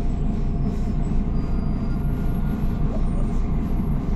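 Diesel city bus (Higer KLQ6129GQ2) heard from inside the passenger cabin: a steady low engine and road rumble, with a faint steady whine above it.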